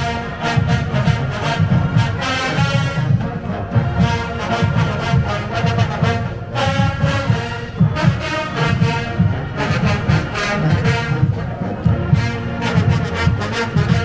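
HBCU-style marching band playing: loud brass over a steady beat of bass drums and percussion.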